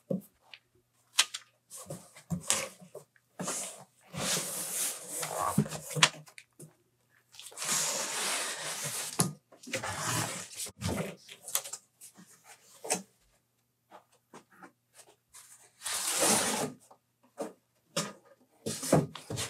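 Heavy cardboard shipping box being worked loose and slid off a plywood crate: several separate stretches of cardboard scraping and rustling, with scattered knocks and taps.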